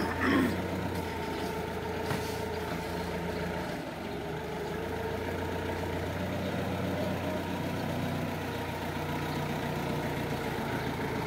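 Linde forklift's engine running steadily as the truck drives and turns with a loaded pallet; the engine note dips briefly about four seconds in. A short, loud gliding sound comes right at the start.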